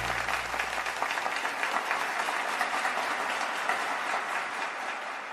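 Passengers applauding, a dense patter of many hands clapping that fades away toward the end.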